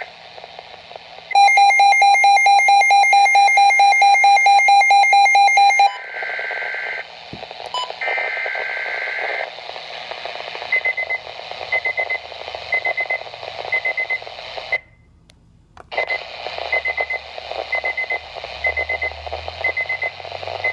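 Weather radio receiver sounding a loud, rapidly pulsing alert beep for about four and a half seconds, set off by an emergency alert broadcast, followed by two more bursts of the broadcast's two-tone digital alert header (SAME data). Static-filled radio then runs with short high beeps repeating about once a second, cut by a brief dropout around the middle.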